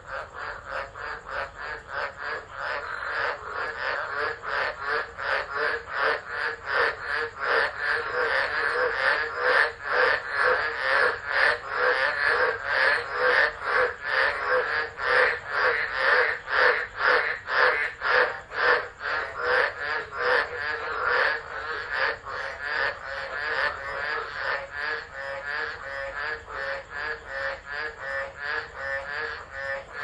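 A dense chorus of tropical frogs calling in rapid repeated notes, about four a second, swelling to its loudest around the middle and easing toward the end.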